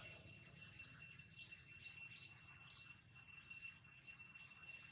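Birds chirping: a run of short, high chirps, about two a second, over a faint steady high-pitched insect drone.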